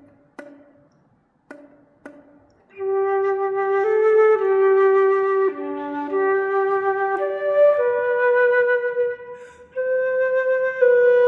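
Solo flute: about four sharp pitched key slaps in the first two seconds or so, then a slow waltz melody of held notes with a full tone.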